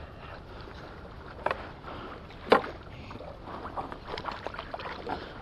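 Knocks and taps aboard a small outboard skiff as a hooked corvina is landed: a light knock about a second and a half in, a sharper one about a second later, then a run of small clicks and taps near the end, over faint water and wind noise.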